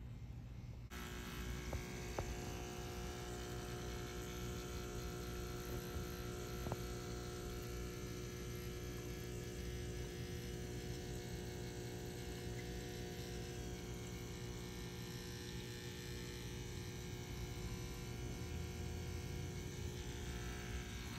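Steady electric buzzing hum with many overtones, unchanging throughout once it starts about a second in.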